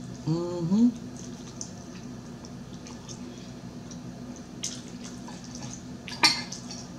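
Eating fried chicken drumettes close to the microphone. About half a second in there is a short rising hummed "mmm", then soft chewing and mouth clicks. Near the end a metal fork gives one sharp clink against the plate.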